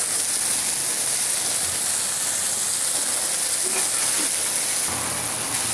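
Food sizzling steadily on a propane flat-top griddle: diced potatoes, mushrooms and strips of meat frying in freshly added butter.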